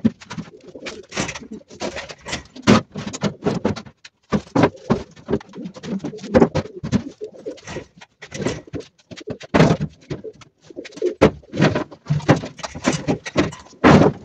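Domestic pigeons cooing, with frequent irregular knocks and rustles of cardboard boxes and boards being moved and set in place.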